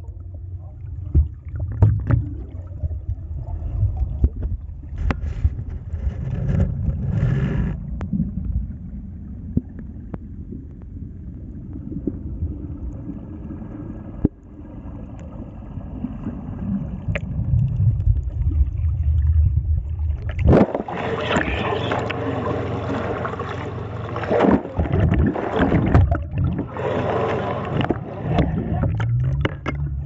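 Muffled underwater sound of moving water picked up by a submerged camera: a low rumble with scattered knocks, turning to louder rushing and knocking from about twenty seconds in.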